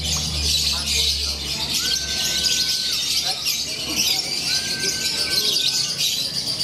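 Lovebirds chattering in a dense, continuous high-pitched chorus, with two long, level whistle tones about two seconds and five seconds in.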